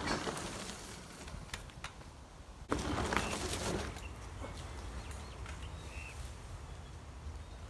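Mountain bike riding on a dirt jump: tyre and drivetrain noise over dirt with clicks and rattles. A sudden louder stretch starts about a third of the way in, and a few short bird-like chirps come through.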